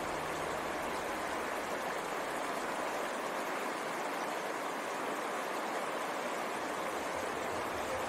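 River water rushing over rocks in a steady, even rush of flowing water.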